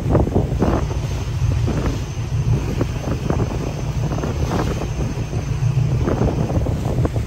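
Wind buffeting the microphone as a steady low rumble, with waves slapping and splashing irregularly around a small boat on choppy sea.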